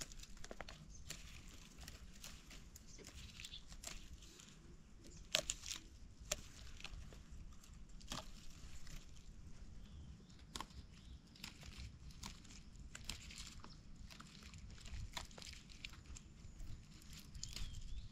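Faint scattered snaps and rustling as young pak wan (Melientha suavis) shoots are picked by hand, with dry leaf litter crackling.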